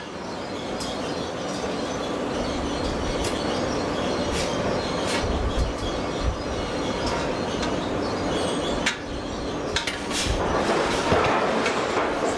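Steady machinery noise in a hot-forging shop, with scattered light metallic clicks and clinks and a couple of dull low thuds.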